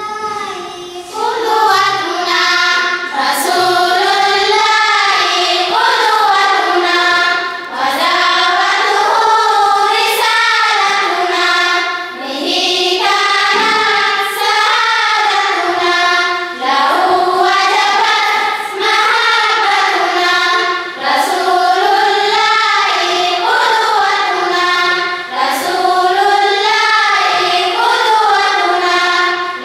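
A group of students singing an Arabic nasheed (naat) together, the melody moving in phrases of a few seconds with short breaks between them.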